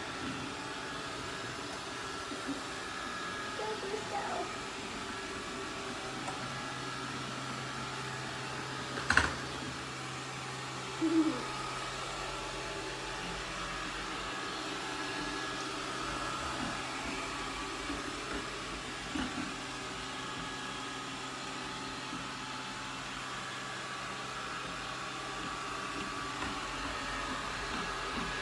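Shark ION R75 robot vacuum running with a steady motor hum and whine. A single sharp knock about nine seconds in.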